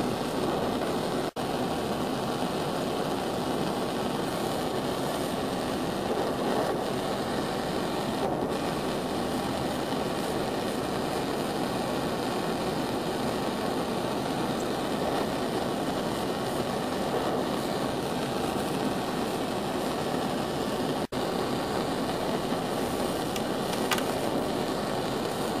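Steady rushing background noise with no distinct events. It drops out briefly twice, about a second in and again about 21 seconds in.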